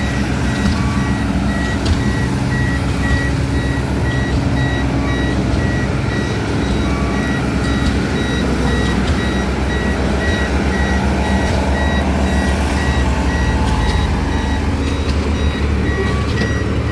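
Heavy diesel equipment engine running steadily while a reversing alarm beeps repeatedly; the beeps are loudest near the start and the end.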